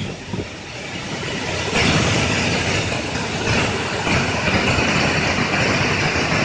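Steady rushing of a flooded, overflowing river, which gets louder about two seconds in.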